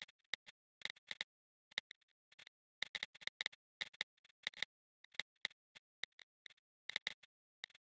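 Smartphone keyboard clicks as a message is typed: short, faint taps at an uneven pace, a few a second, with brief pauses between bursts.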